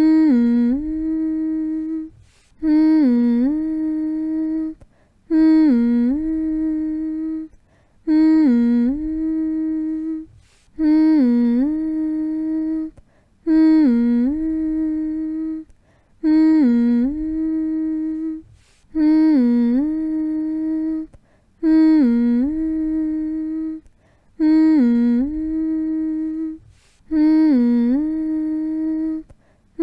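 A person humming a short soothing phrase over and over, about every two and a half seconds: each hum dips briefly in pitch near its start, then holds one steady note, with a short pause between hums.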